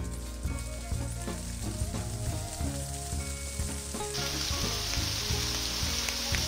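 A steady high hiss over low background music. The hiss becomes much louder and brighter suddenly about four seconds in.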